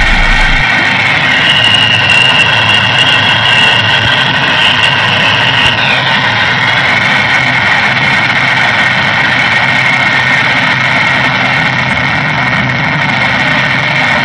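Harsh electronic noise music: a loud, dense, steady wall of noise with several high held tones over it. A shrill tone comes in about a second in and bends down and out near the middle, and the deep bass drone drops out just after the start.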